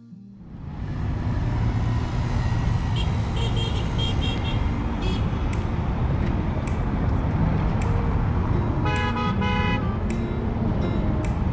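Heavy road traffic on cobblestone paving: a steady rumble of engines and tyres that swells up within the first second. Car horns honk over it, with several short toots about three to five seconds in and two louder blasts about nine seconds in.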